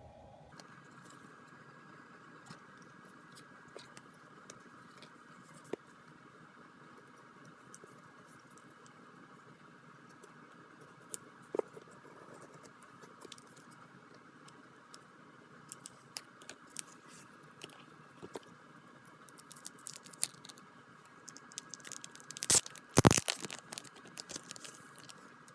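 Packaging being handled during an unboxing: scattered small clicks and rustles over a faint steady hum, with a short, louder burst of crinkling and crackling near the end.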